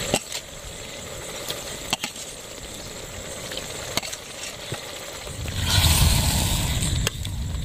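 Chicken pieces sizzling and bubbling in a steel pot of hot spiced oil over a wood fire, a steady hiss with a few sharp clicks. About five and a half seconds in it gets louder and fuller, with a deep rumble, as the pot is stirred with a ladle.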